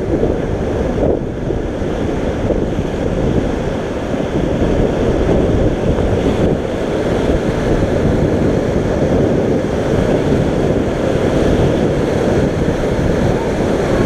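Whitewater rapids of the Beas River rushing and churning around a raft, a loud, steady roar of water.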